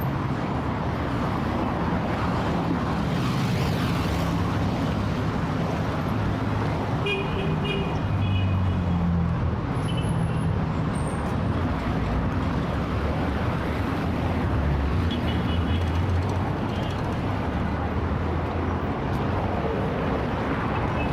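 Heavy city traffic: a steady rumble of car engines and road noise, with a few short high beeps, typical of car horns, about a third of the way in and again later.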